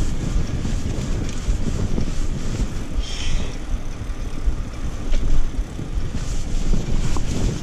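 Wind buffeting the microphone of a camera on a moving bicycle: a gusting low rumble, with a brief higher hiss about three seconds in.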